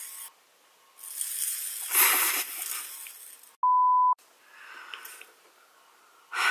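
A loud rush of noise swells and fades in the first half, then a short steady 1 kHz bleep tone sounds once, like a censor beep.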